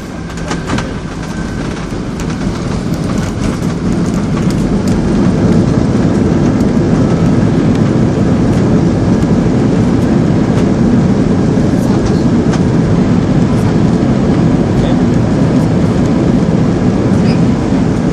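Airbus A320 cabin noise during the landing roll: a heavy rumble with a few rattles near the start, then the engine noise swells over about four seconds to a loud, steady level, typical of reverse thrust after touchdown.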